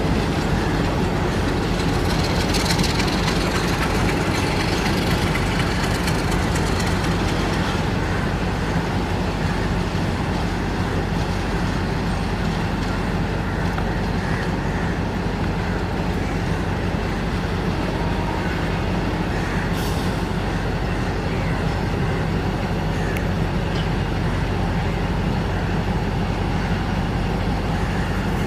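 Diesel locomotive running light at low speed, its engine giving a steady low drone throughout. A few short sharp clicks come from the wheels crossing the rail joints and points, one near the start and another about two-thirds of the way through.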